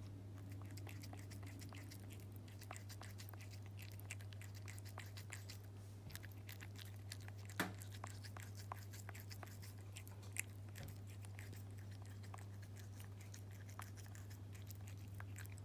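A cat chewing food fed from a hand, its teeth clicking and grinding in many small quick clicks, with one louder click about halfway through.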